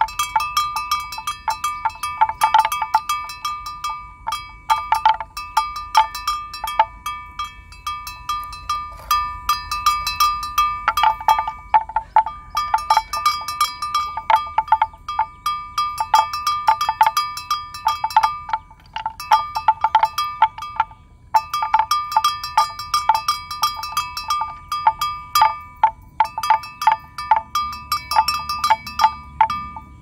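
A metal bell on a grazing water buffalo's neck clanking irregularly. The strikes come several a second in clusters with short pauses, and each one rings on in a clear tone.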